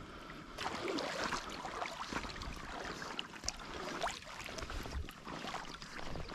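Rustling and light splashing at the water's edge, with scattered small clicks and knocks.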